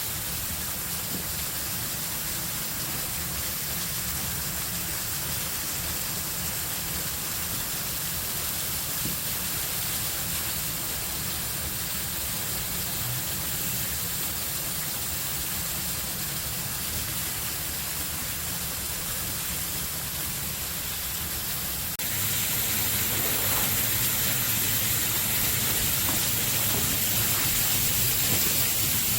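Steady rush of water from a partly frozen waterfall, with a low rumble under it. It grows louder about two thirds of the way through.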